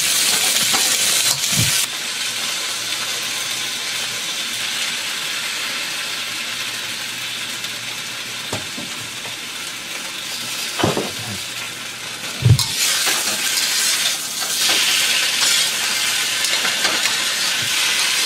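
Soaked rice cake slices sizzling in hot oil in a wok, with a few knocks of a metal ladle against the pan as they are stirred. The sizzle eases about two seconds in and picks up again past the halfway mark.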